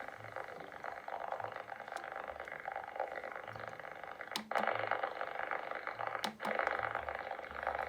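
CRT SS6900N CB radio receiver playing steady crackling noise through its speaker: the constant interference crackle that the owner believes comes from something outside the house. Two sharp clicks come about two seconds apart, and the crackle is louder after each.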